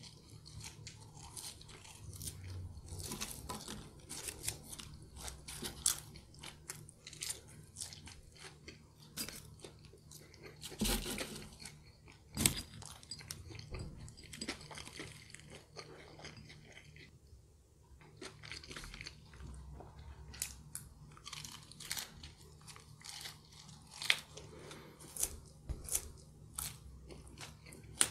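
A person chewing McDonald's French fries dipped in chilli sauce close to the microphone: a steady run of small crunches and wet mouth clicks, with a couple of louder ones around the middle.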